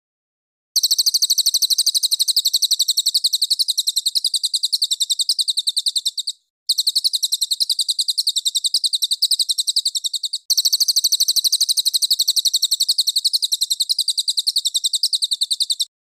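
Songbird master recording: a very high, rapid trill of evenly repeated chirps, about a dozen a second, in three long runs broken by two brief gaps, about six and ten seconds in. It is birdsong edited into a loop for teaching caged songbirds a fighting song.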